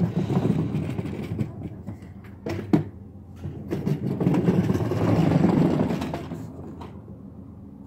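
Wheels rolling over hard ground: a rough rumbling that swells in the middle and fades near the end, with two sharp knocks a little under halfway through.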